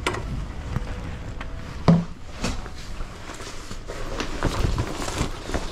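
Handling noises: the click of a door's lock and handle, a single thump about two seconds in, then rustling of a jacket and clacks of wooden coat hangers.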